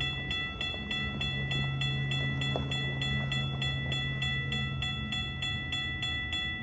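Railroad crossing bell ringing steadily, about three strokes a second, over the steady rumble and wheel noise of a double-stack intermodal freight train rolling past.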